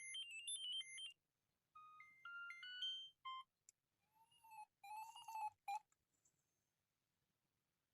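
Siemens BenQ A75 mobile phone playing ringtones: one electronic tune ends about a second in, and after a short gap a second short tune of stepped notes climbs upward. Around the middle comes a warbling pattern of gliding electronic tones, which cuts off about two seconds before the end.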